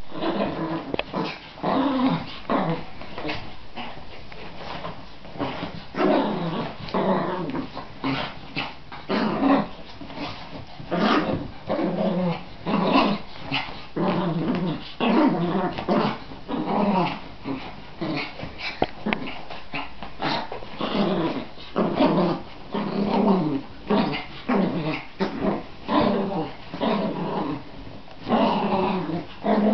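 Small dog growling over and over in short bursts, about one or two a second: an angry protest at being dried after a bath.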